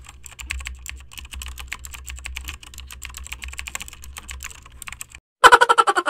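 Computer keyboard typing, rapid keystrokes over a low hum. After about five seconds the typing stops, and near the end a short, loud, rapidly pulsing tone sounds.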